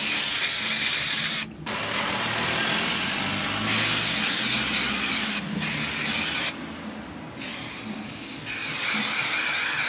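Spray adhesive hissing out of the can in long sprays, with short breaks about a second and a half in and around five and a half seconds, and a quieter spell around seven seconds.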